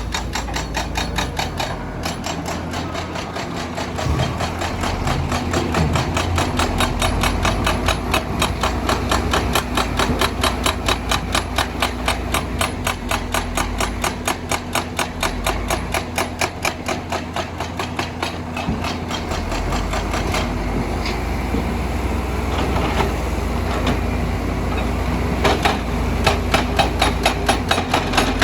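Excavator-mounted hydraulic rock breaker hammering stone in rapid, steady blows, with the excavator's diesel engine running underneath.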